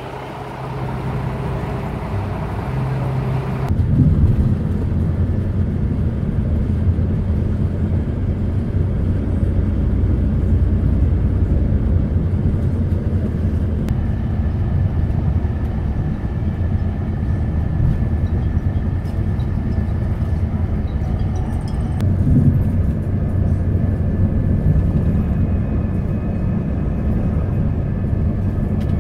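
A few seconds of bus-station background noise, then the steady low rumble of a Greenbus intercity coach on the road, heard from inside its cabin: engine and road noise, with a faint steady high tone joining about halfway through.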